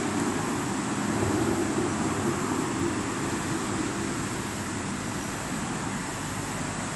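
Steady outdoor background noise: an even hiss over a low rumble, with no distinct events.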